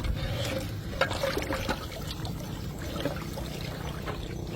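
River water trickling, with a couple of faint sharper sounds about a second in.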